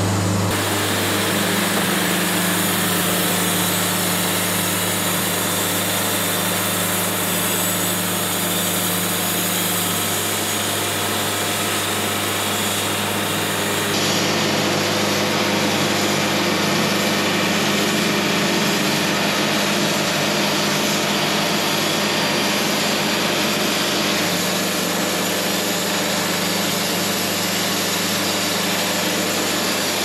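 Wood-Mizer LT70 Super Wide bandsaw mill running steadily, its engine and band blade sawing through a sassafras cant.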